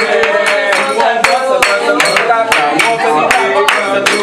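A group clapping in a steady rhythm, about three to four claps a second, while several voices sing along.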